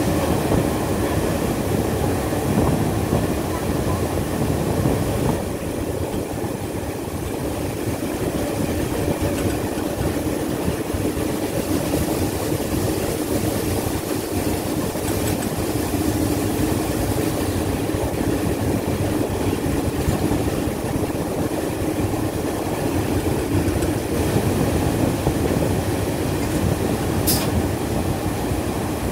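Diesel locomotive under way, heard from inside its cab: a steady engine drone mixed with wheel and track noise. A brief high-pitched squeak comes near the end.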